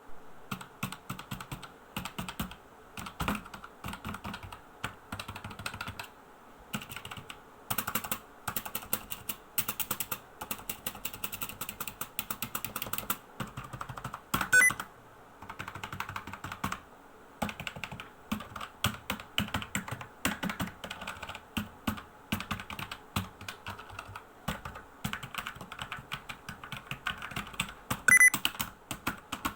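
Clicky keyboard being typed on: rapid runs of keystrokes with short pauses. Two louder clacks come about halfway through and near the end.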